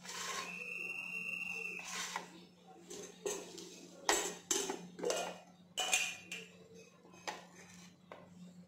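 Stainless-steel dishes and a spoon clinking and knocking: a held ringing tone for about a second and a half at the start, then a string of sharp clinks.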